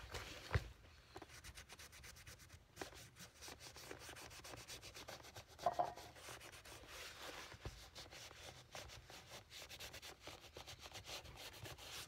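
Leather shoe upper being rubbed by hand in faint, quick repeated strokes as conditioner is worked into the leather, with a couple of louder scuffs.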